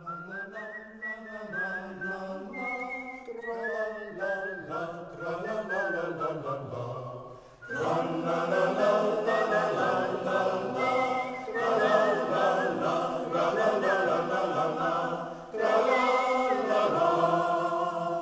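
Basque choir singing in parts. After a softer opening phrase there is a brief pause about halfway through, and the choir comes back in louder. A second short break comes near the end.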